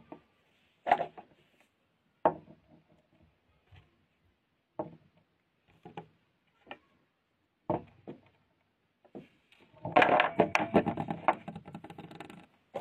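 Bars of soap being handled by fingers: a series of separate soft taps and knocks, then about two and a half seconds of dense crackling near the end.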